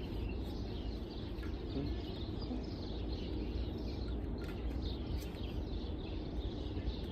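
Outdoor background: a steady low rumble, like wind on the microphone, with small birds chirping now and then and a few light clicks.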